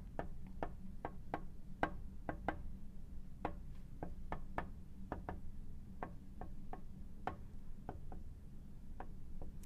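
A marker on a glass lightboard writing figures and brackets: short, uneven taps and ticks of the tip on the glass, about three a second.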